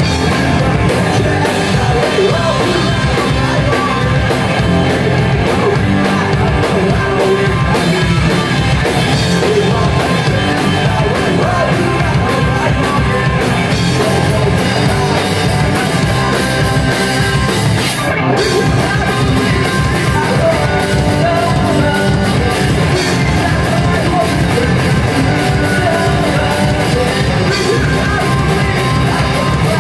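Live rock band playing loudly: amplified guitars with a man singing lead.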